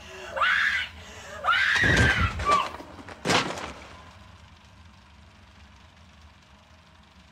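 A woman screaming in panic, twice, then a sharp knock as the dropped camcorder hits the floor about three seconds in. After that only faint steady tape hiss and hum remain.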